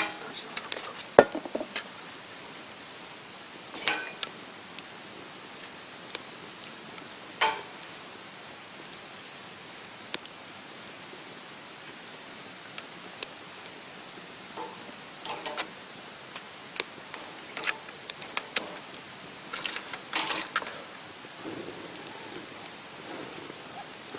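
Occasional clinks, knocks and short clatters of camp cookware and utensils being handled, over a steady low hiss.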